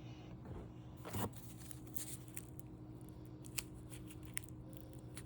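Faint handling of a firework shell box being opened: scattered light clicks and rustles of packaging, with a soft knock about a second in.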